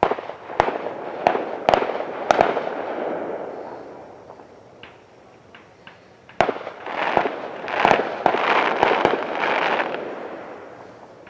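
Fireworks going off in two volleys of sharp bangs and crackling. The first comes right at the start and the second about six seconds in, and each dies away over a few seconds.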